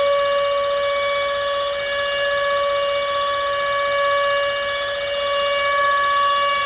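Civil defence air-raid siren sounding one steady, held tone.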